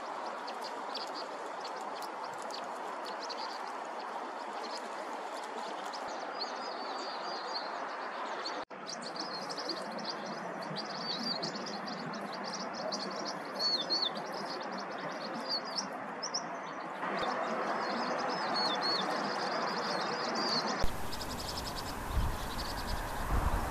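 A flock of vinous-throated parrotbills calling, a run of quick, high twittering chirps over a steady background hiss. Near the end a low rumbling noise comes in.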